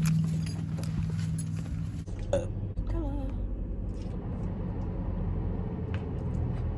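A car door is opened and, between two and three seconds in, shut with a thud; after that the muffled, closed-in sound of the car cabin, with a dog panting beside the driver.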